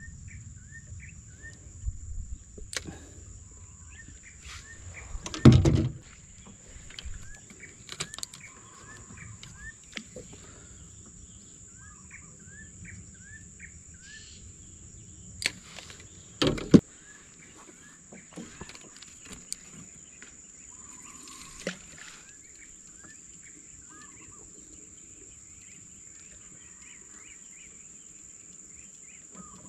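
Riverside ambience: birds giving series of short rising chirps over a steady high-pitched tone. Two loud knocks, about five and a half and sixteen and a half seconds in, from gear being handled in the small boat.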